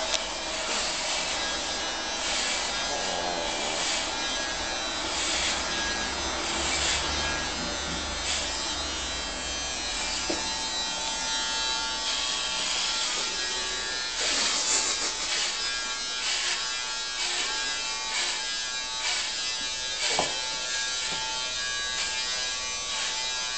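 Electric hair clippers buzzing steadily as they cut through hair, with a few brief clicks.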